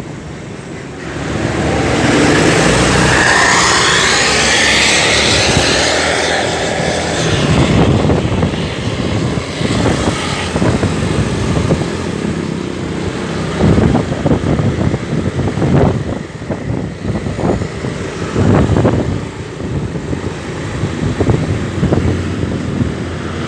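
Tour bus pulling out with its engine running: a loud rushing sound for the first several seconds, then uneven engine and traffic noise.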